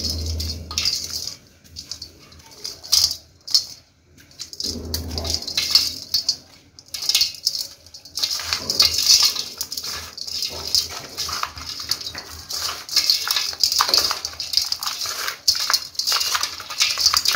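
Dry dirt crumbled and rubbed between hands, the grains and small clods falling and scraping on a perforated aluminium colander: a dense, gritty crackling with light metallic rattles. Two low thuds come near the start and about five seconds in.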